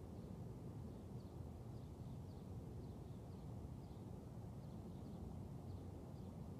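Quiet city backyard ambience: a steady low rumble, with a faint high chirp repeating about every half second.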